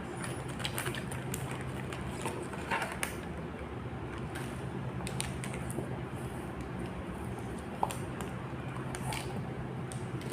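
Scattered light clicks, taps and rustles of items and packaging being handled, with one sharper click about eight seconds in, over a steady low hum.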